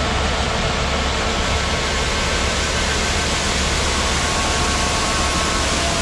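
Brent 1396 Avalanche grain cart's unloading auger running, pouring shelled corn into a semi grain trailer, with the Case IH Quad Track tractor's engine running under the PTO load: a steady rushing noise over a low engine hum.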